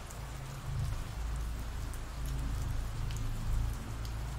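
Steady rain falling, an even hiss with scattered faint drop ticks over a low rumble.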